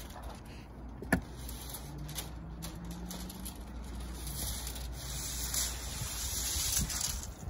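Small foam paint roller spreading tape primer over EPDM rubber roofing membrane, a soft sticky hiss that grows through the second half. A sharp knock about a second in, and a faint low hum for a couple of seconds after it.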